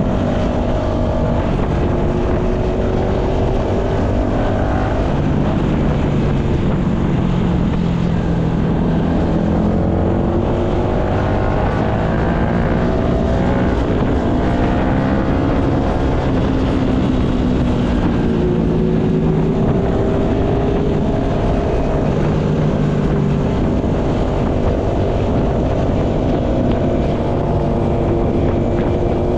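Yamaha MT-125's single-cylinder four-stroke engine running under way, its note climbing and falling repeatedly as it revs and shifts, over a low rush of wind noise.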